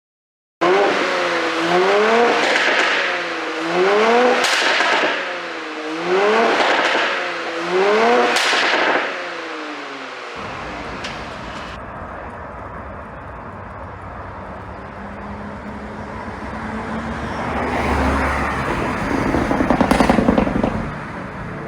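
Porsche Cayenne 3.0-litre turbocharged V6 on a pop-and-crackle ECU tune, revved hard four times in quick succession with sharp cracks among the revs. It then settles to a lower, steady running sound that builds to a loud burst near the end.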